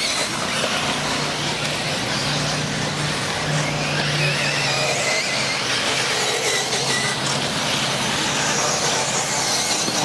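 Electric off-road RC buggies racing on a dirt track: a steady wash of motor whine and tyre noise, with faint rising and falling whines from individual cars as they accelerate and brake.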